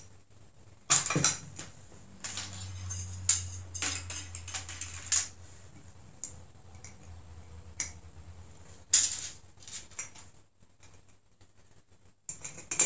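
Metal clinks and clicks of swing-top bottle cap wire bails and fittings being worked onto a glass wine bottle's neck and jostled among loose parts on a tray. The clicks are scattered and irregular, with louder ones about a second in and again near nine seconds, and a faint low hum for a few seconds in the middle.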